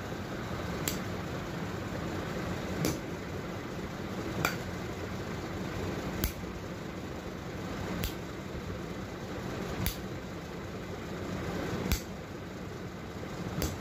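A thin rod striking the bare sole of a foot in bastinado (falaka): eight sharp smacks, about one every two seconds, over a steady low hiss.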